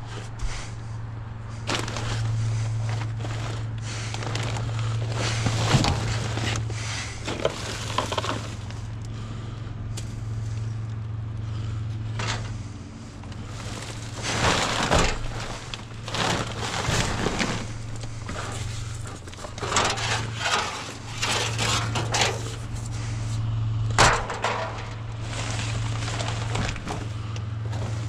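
Trash being trampled and shifted inside a steel dumpster: cardboard and plastic bags crunching and rustling, and pallet wood knocking and cracking in irregular bursts over a steady low hum.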